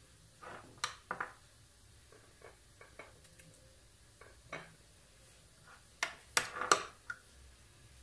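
Metal spoon tapping and scraping as dollops of thick cream (qishta) are scooped from a tub and dropped onto milk-soaked pastry in a glass baking dish: scattered soft clicks, with a cluster of louder taps about six seconds in.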